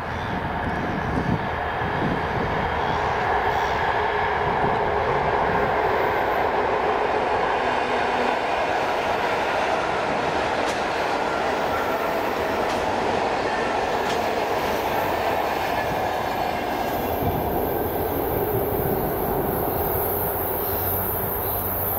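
ER2K direct-current electric multiple unit running along the track as it approaches, a steady train noise throughout.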